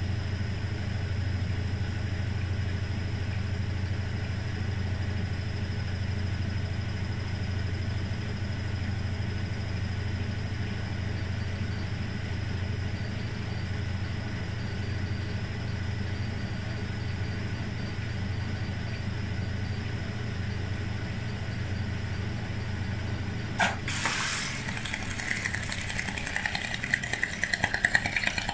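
1968 Scharpf Elektronica 2920 washing machine running with a steady low hum. About 24 seconds in there is a sharp click, the hum drops away, and an irregular rattling clatter begins. That rattling comes from the machine's magnetic clutch with counterweight freewheel during washing.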